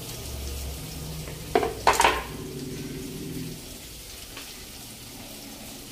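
Sliced onions frying in hot oil in a pan: a steady sizzle, with two louder bursts about a second and a half and two seconds in as more onion goes into the oil, then settling to a quieter frying hiss.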